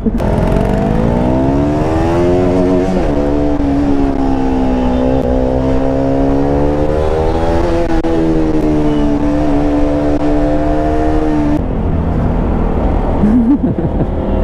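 KTM Duke 200's single-cylinder engine pulling through traffic: its pitch climbs, drops sharply about three seconds in, climbs again and then holds steady. The engine note stops abruptly about eleven and a half seconds in, leaving road and traffic noise.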